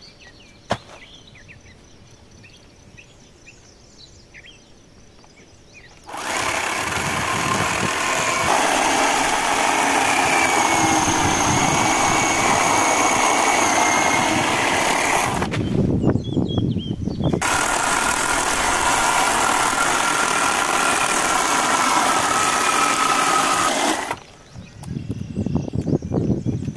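Bosch electric chainsaw cutting through a log. The motor starts about six seconds in and runs loud with a steady whine, stops for a couple of seconds near the middle, then runs again until it stops a few seconds before the end as the round is cut off.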